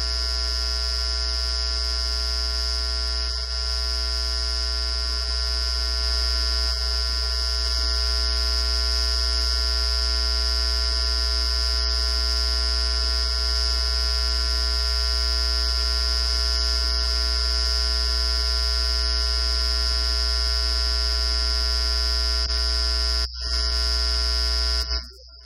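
Loud, steady electrical hum and buzz: a low hum with a high-pitched whine and many steady tones between. It dips briefly near the end and then cuts off suddenly.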